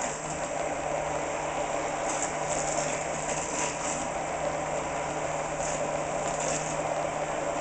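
Hand-held electric immersion blender running steadily in a small saucepan, its motor humming evenly while the blade purees strawberries into a coulis.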